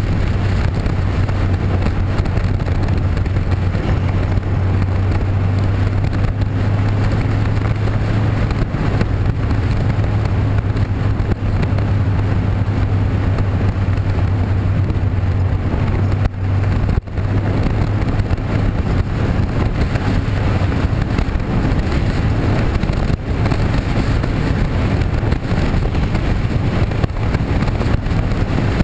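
Motor vehicle driving steadily: a constant low engine drone with road and wind noise, dipping briefly about sixteen seconds in.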